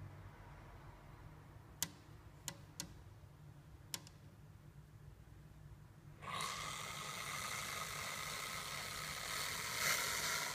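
Boa constrictor hissing: one long, loud exhaled hiss starting about six seconds in and lasting about four seconds, with the snake's mouth open. A few sharp clicks come before it.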